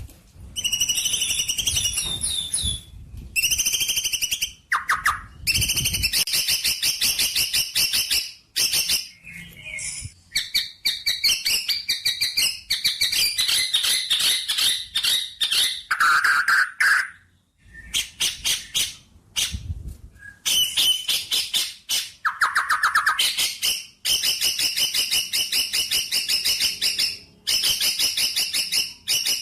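Songbird song in loud, rapid trilled phrases a few seconds long, separated by short pauses, with a few lower chirps in between.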